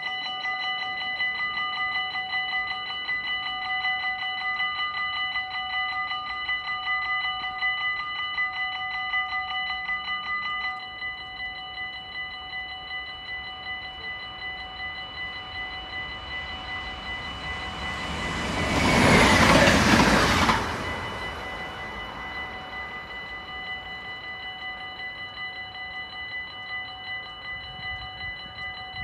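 Dutch level-crossing bells ringing rapidly and continuously, growing somewhat softer about a third of the way through, around when the barriers are down. About two-thirds of the way in a train rushes past the crossing for two or three seconds, the loudest sound, then the bells ring on.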